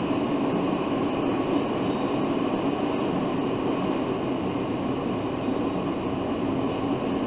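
Steady hum of a car heard from inside its cabin, engine running as it waits and creeps forward in slow traffic.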